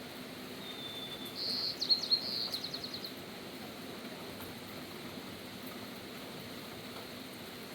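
A songbird calls once over steady rain hiss: a short high phrase starting about a second and a half in, ending in a quick trill of repeated notes that fades out.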